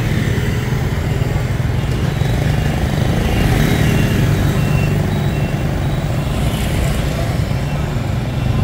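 City street traffic heard from a moving cyclo: a steady low rumble of motorbikes and cars, with a faint beep repeating several times near the middle.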